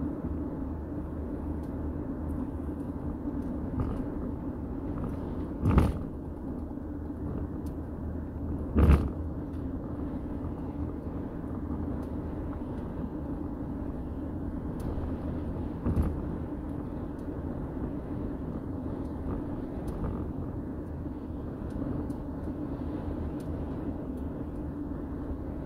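Steady road and engine noise inside a vehicle cruising at highway speed, a low rumble with a steady hum. Two sharp thumps stand out about 6 and 9 seconds in, with a smaller one near 16 seconds.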